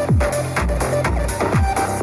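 Electronic dance music played on a Soundcore Select Pro Bluetooth speaker during a sound test: a steady kick drum about twice a second, each hit dropping in pitch, under a held synth melody.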